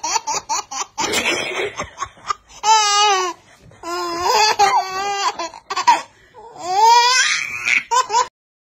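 Baby laughing: quick, breathy giggles at first, then long high-pitched squealing laughs with a shaking pitch, coming in several bouts. The laughter cuts off suddenly near the end.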